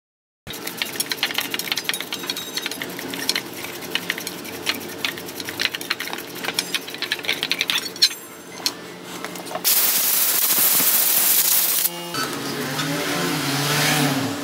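A stiff brush scrubbing small starter-motor parts in a steel bowl of cleaning fluid: quick, rough scratching with many small clicks and knocks against the bowl. Past the middle comes a loud, even hiss lasting about two seconds, then a rougher rubbing noise over a low wavering hum.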